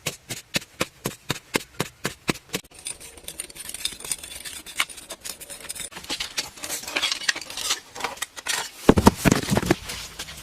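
A quick even series of sharp knocks, about four a second, for the first two and a half seconds, then scraping and rustling, with a cluster of loud heavy thuds about nine seconds in.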